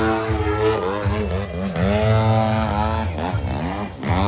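Engine and propeller of a large AJ Aircraft aerobatic RC airplane in flight, its pitch falling and rising several times. It drops in loudness briefly near the end.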